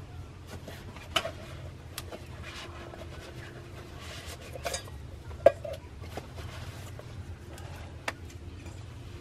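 Scattered clinks and knocks of a steel cup and vacuum flask being handled while making coffee, the loudest about five and a half seconds in, over a low steady rumble.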